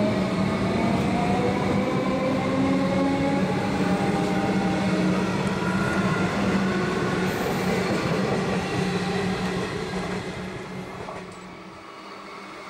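Comeng electric suburban train pulling away from the platform. A whine rises slowly in pitch as it gathers speed, over a steady low hum and wheel and rail noise. The sound falls away near the end.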